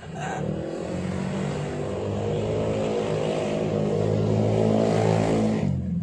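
A motor vehicle engine running and revving up, its pitch slowly rising and growing louder, then cutting off abruptly near the end.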